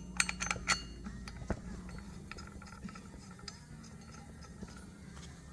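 Metal motorcycle sprocket-hub parts clinking as they are handled and fitted onto a rear wheel hub: a cluster of sharp clinks in the first second, a single knock about a second and a half in, then faint light ticks.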